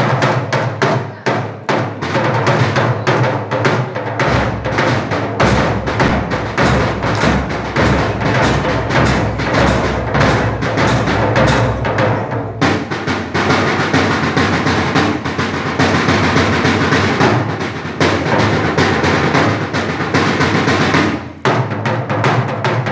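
Drumsticks beating a fast rhythm on a hand-held drum. About halfway through the strokes thicken into a dense, almost continuous roll, broken by a short gap near the end.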